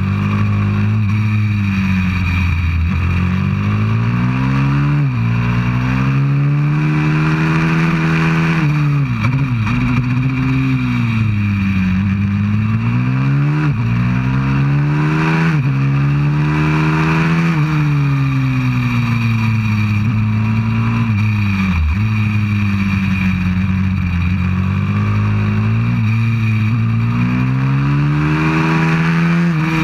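190cc pit bike's single-cylinder four-stroke engine ridden hard on track, revving up and down continually: pitch climbs, drops sharply at gear changes and sags for corners. Wind rushes over the microphone.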